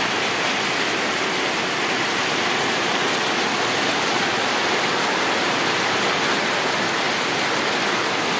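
Heavy tropical downpour: a steady, even hiss of rain falling on puddled ground and rooftops, with water running off the roof eaves.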